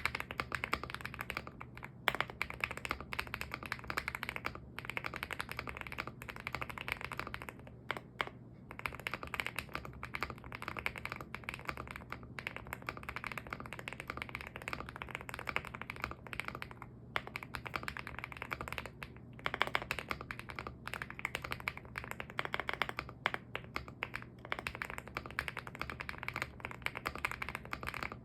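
Fast continuous typing on an EPOMAKER x Feker Galaxy80 mechanical keyboard with factory-lubed Gateron Smoothie Silver linear switches and cherry-profile keycaps, with a few brief pauses. The owner finds the stock case a bit hollow and pingy and the stabilisers in need of work.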